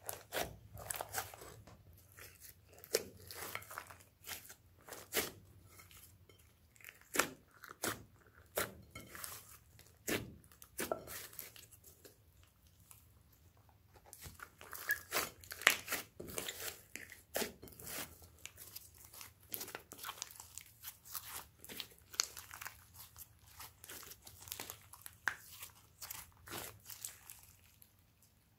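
Slime mixed with beads, sequins and glitter being kneaded, squeezed and stretched by hand: irregular sticky clicks and pops, some loud and sharp.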